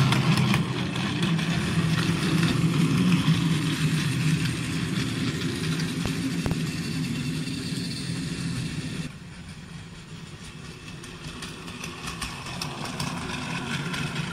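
A TrackMaster 2 Salty battery-powered toy train engine runs along plastic track with a steady whirring hum from its small electric motor, along with light clicking throughout. The sound drops noticeably in level about nine seconds in.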